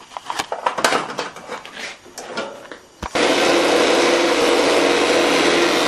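A few scattered clicks and knocks, then about three seconds in the 12-inch Belsaw planer/molder comes on suddenly and runs with a loud, steady machine noise from its motor and spinning cutterhead.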